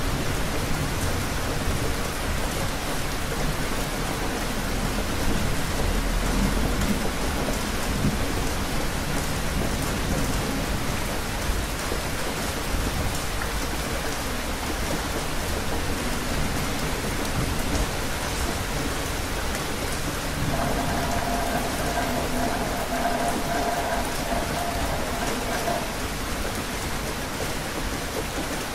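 Steady, heavy rain falling, with low rumbles of distant thunder near the start and again about six seconds in.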